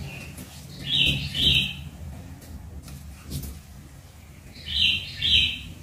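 A bird chirping: two pairs of short high chirps, one pair about a second in and another about four seconds later, over faint clicks of plastic sticker sheets being handled.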